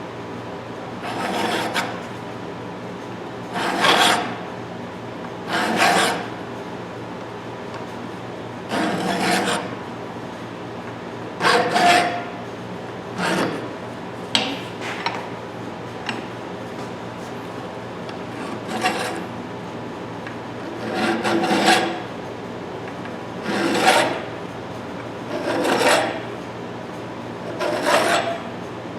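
Hand file scraping across the steel teeth of a pipe wrench jaw, cleaning out and sharpening the rusty, pitted grooves. Separate strokes of about half a second each, one every couple of seconds, at an uneven pace.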